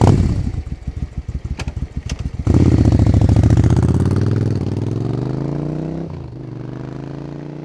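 Engine sound effect: a rapid sputtering chatter for about two seconds, then the engine catches and runs loudly, its pitch rising as it revs, before slowly fading.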